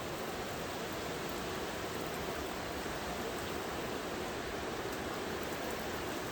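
Heavy cyclone rain and wind, a steady even rushing noise with no breaks.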